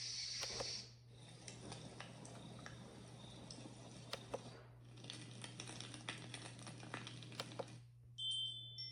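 Built-in sound tracks of a sunrise alarm clock with a sound machine, played through its small speaker. Cricket chirping cuts off about a second in. It gives way to a hissing noise with scattered clicks, in two stretches with a brief break between them. Steady chime-like tones begin near the end.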